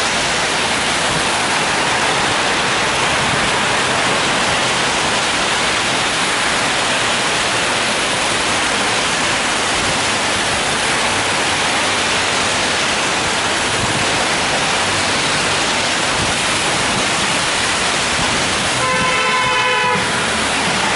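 Steady rain on an umbrella held overhead, mixed with the hiss of traffic on a wet road. A short pitched beep sounds for about a second near the end.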